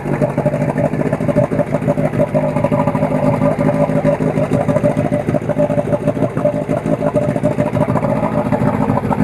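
Johnson 8 hp two-stroke outboard motor running steadily, freshly started and running on a Seafoam treatment, with its lower unit in a bin of water.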